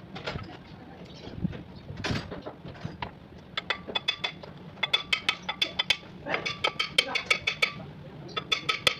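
Runs of quick metallic clicks with a bright ring, starting a few seconds in and coming thickest past the middle. The clicks come from hand tools working on metal water-pump parts.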